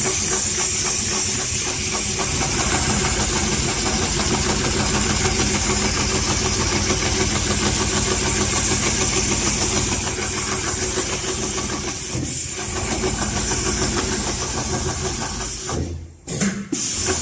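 HighTex 728-30 heavy-duty long-arm walking-foot industrial sewing machine running at steady speed, stitching webbing onto heavy silt-curtain fabric, with a rapid even stitch rhythm over a steady hiss. It stops briefly about sixteen seconds in, gives one short burst, then runs on.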